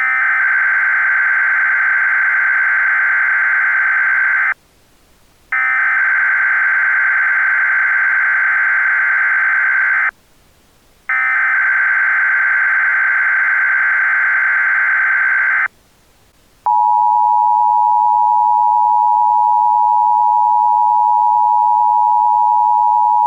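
Emergency Alert System header: three bursts of SAME digital data tones, each about four and a half seconds long and a second apart, marking the start of an alert. About seventeen seconds in, the steady EAS two-tone attention signal begins and holds.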